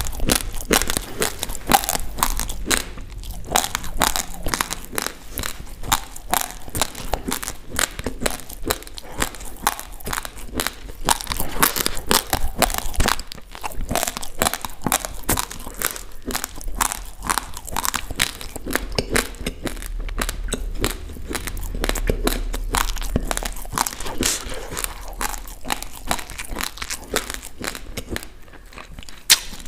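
Dry, uncooked basmati rice grains crunched and chewed right at the microphone: a dense, unbroken run of sharp little cracks.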